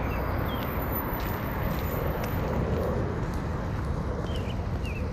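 Outdoor street ambience heard while walking: a steady low rumble, with a few short, faint chirps of small birds now and then.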